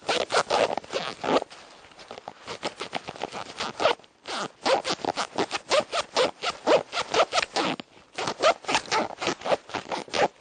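Zipper being pulled back and forth repeatedly, each stroke a fast run of clicking teeth. The strokes come in several bursts with short breaks, with a quieter, lighter stretch after the first second or so.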